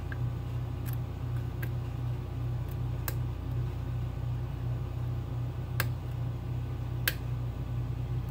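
Hook pick working the pins of a Schlage Everest lock cylinder under tension, with a few faint, scattered clicks as pins set, over a steady low hum.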